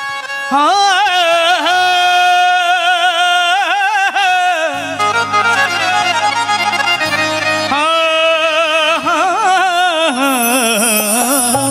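Live devotional music on an electronic keyboard: a melody of long, wavering held notes, with low sustained bass notes joining about five seconds in.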